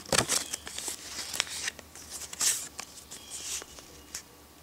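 Clear plastic coin sleeve crinkling irregularly in the fingers as the coin inside is handled and turned over. It is loudest right at the start and again about halfway through.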